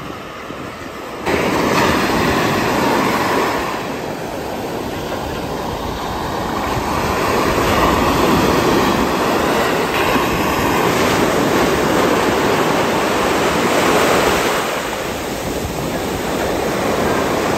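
Small Gulf surf breaking and washing up on a sandy beach: a steady rushing that rises and falls with the waves, suddenly louder about a second in.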